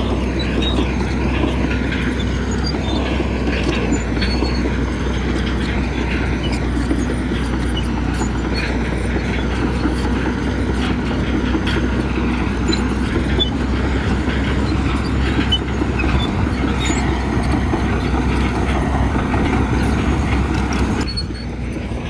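Heavy diesel earthmoving machinery running steadily, its engine note mixed with continuous metallic clatter, easing slightly near the end.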